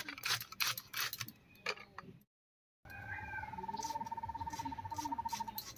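Crisp clicks as fresh taro flower stalks are sliced into rings on a boti blade, the pieces dropping into a steel bowl. After a brief cut to silence, a steady, fast-pulsing high trill runs for about three seconds, with more soft cutting clicks beneath it.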